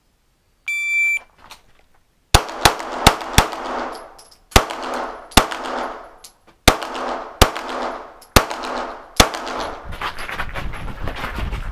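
An IPSC shot timer gives its start beep, a short electronic tone. About 1.5 s later a Glock pistol begins firing: about ten shots, some in quick pairs, each ringing on in the enclosed shooting bay.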